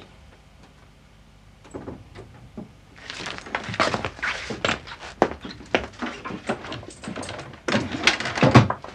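Rustling and knocking of papers and small objects being handled and moved about on a wooden desk, a few scattered clicks at first, then busy handling noise, with a heavier thump near the end.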